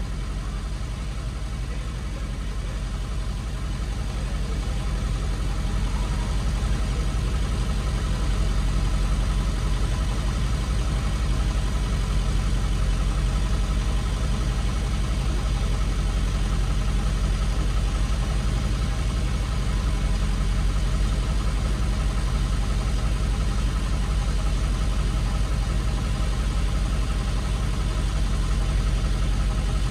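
Tow truck engine idling steadily, heard from inside the cab.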